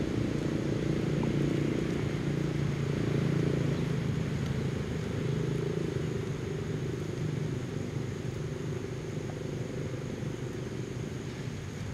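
Motor vehicle engine running steadily, louder in the first few seconds and then slowly growing fainter.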